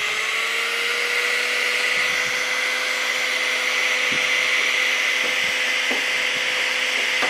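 Electric heat gun blowing hot air, its fan motor just switched on and coming up to speed in the first second, then running steadily with a whine over a strong rushing hiss.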